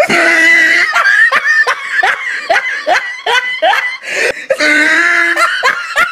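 A person laughing hard: a drawn-out note, then a run of short repeated laughs about three a second, then another drawn-out note near the end.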